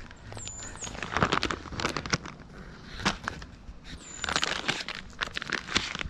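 Plastic birdseed bags rustling and crinkling as they are handled and swapped, with irregular crackles and clicks.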